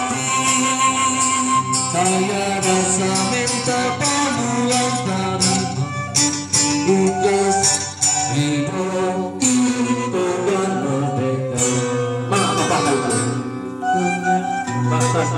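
Traditional Sundanese music with a singing voice, a melody moving in held notes over a steady accompaniment.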